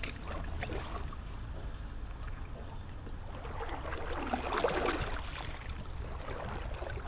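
Inflatable kayak paddle dipping into and pulling through canal water, with splashes and dripping trickles from the blade, busiest about four to five seconds in.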